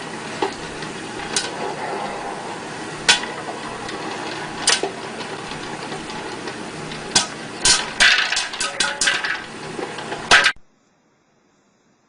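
Scattered sharp knocks and clatters of hard objects over a steady background hiss, coming thick and fast about eight to nine seconds in; everything cuts off abruptly about ten and a half seconds in.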